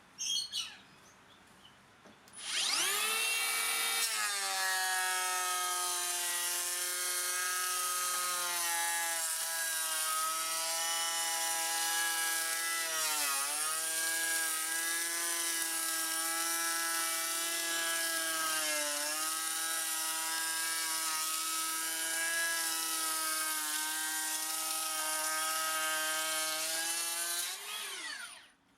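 Makita 40V XGT cordless planer (KP001G) spinning up with a rising whine, then cutting a long pass along a board. Its pitch sags under load and dips twice as the cut bites harder, and it winds down near the end.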